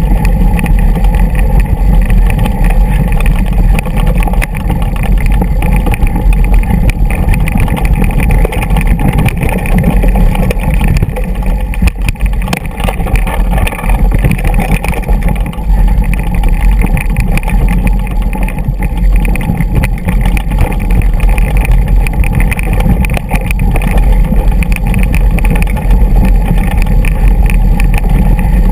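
Mountain bike rolling down a rocky dirt trail, heard through a bike-mounted GoPro as a loud, steady, muffled rumble of wind and the jolting of the bike over stones, with most of the sound low.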